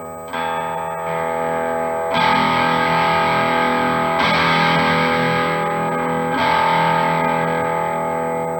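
Electric guitar with a freshly installed Seymour Duncan Little '59 mini humbucker in the bridge, played through an amp with mild distortion. Four chords are strummed about two seconds apart, each left to ring.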